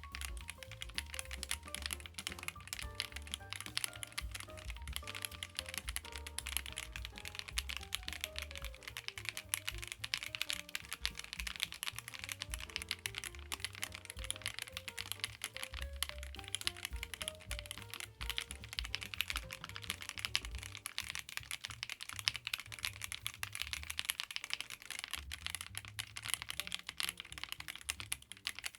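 Continuous fast typing on a MonsGeek M1W mechanical keyboard, with its aluminium case and gasket mount, giving a dense stream of key clicks over background music with a bass line and melody.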